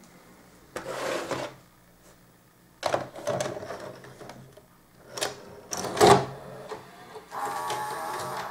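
A VHS cassette being pushed into the front slot of a Sony SVO-2000 S-VHS deck: clicks and knocks as it goes in and is taken down, the loudest about six seconds in. Then, over the last second, the deck's loading mechanism whirs steadily.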